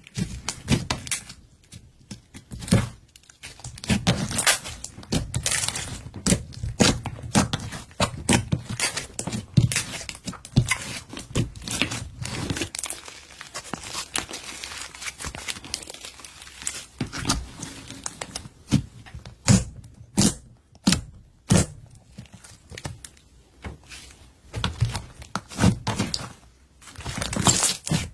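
Glitter slime being kneaded and stretched by hand, making irregular crackles and pops with short pauses.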